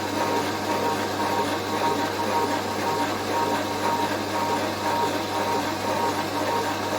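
Machine tool running steadily while boring out the bores of a worn weighshaft bracket casting, with a steady low hum and a thin high tone that comes and goes.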